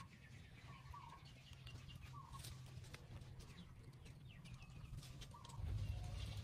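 Faint short animal calls, repeating every second or so, with scattered small clicks over a low rumble that grows louder about five and a half seconds in.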